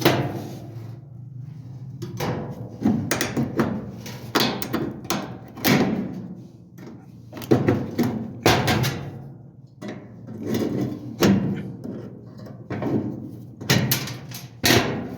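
Irregular sharp knocks and clicks of hand tools working on a dryer drum support wheel and its plastic retaining parts, a dozen or so strikes over a steady low hum.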